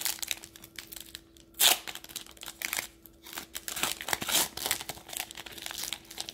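Foil wrapper of an NBA Hoops basketball card pack being torn open and crinkled by hand: irregular crackles and rips, the loudest a sharp tear a little under two seconds in.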